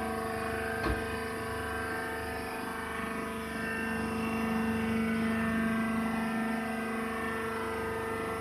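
Wood shavings and sawdust baler machine running: a steady machine hum with a knock about a second in, the hum swelling slightly in the middle.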